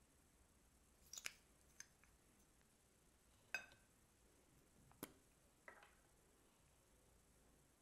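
About five short plastic clicks and taps of makeup tubes and caps being handled, over near silence. One of them rings briefly.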